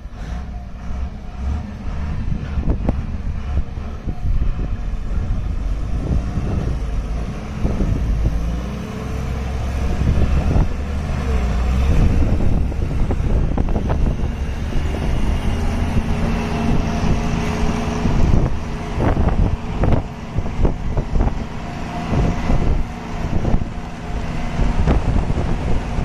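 Truck engine running while driving over a rough off-road track, with a steady low rumble and frequent knocks and rattles from the bumps, thickest in the second half.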